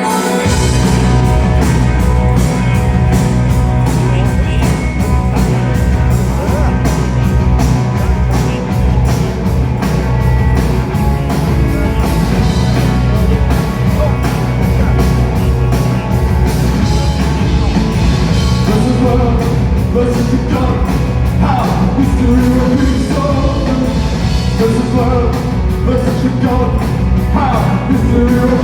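Live rock band playing loudly: drums, bass and guitars come in together right at the start and settle into a steady driving beat. A wavering melody line rises over the band about two-thirds of the way through.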